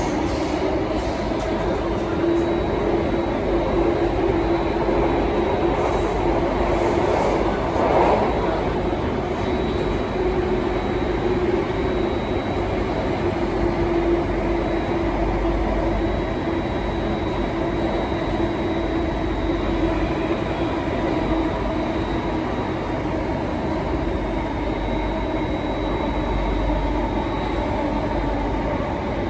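Singapore MRT Circle Line train running between stations, heard from inside the carriage: a steady rumble of wheels on rail with a steady low hum and a faint high whine. A brief louder noise comes about eight seconds in.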